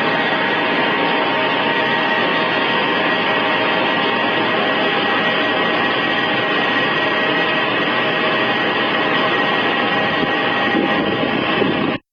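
Airbus A320 jet engines running steadily near idle: a continuous roar with several steady whining tones on top. The sound cuts off abruptly right at the end.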